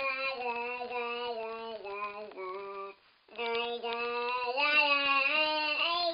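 A high voice holding a droning, wordless sung tone as an annoying noise. The long notes step downward in pitch, break off for a breath about three seconds in, then start again louder and higher.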